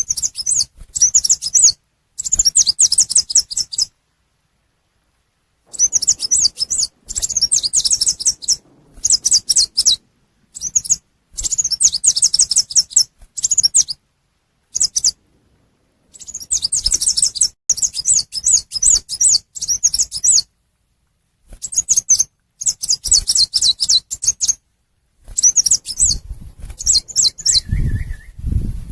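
Recorded lure call of a chim sâu xanh tím: rapid, high twittering trills in bursts of one to two seconds, broken by abrupt silences. A low thump comes near the end.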